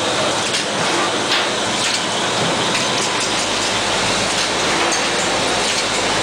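Automatic PET bottle filling and capping machinery running: a steady, dense mechanical clatter and hiss with many small clicks.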